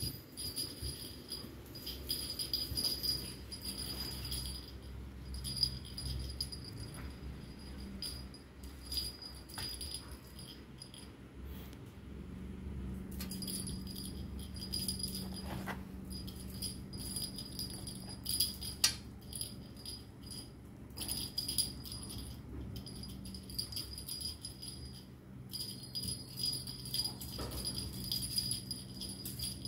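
Cat teaser wand toy with beads and a small bell, jingling and rattling in irregular bursts as it is jiggled and batted.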